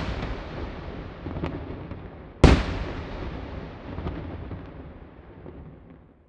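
Fireworks shells exploding: a loud bang about two and a half seconds in and a few lighter pops, each with a long rolling echo. The rumble dies away near the end.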